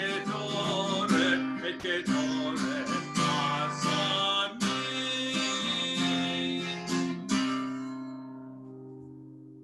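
Steel-string acoustic guitar strummed in a steady rhythm, ending about seven seconds in on a final chord that rings on and slowly fades away.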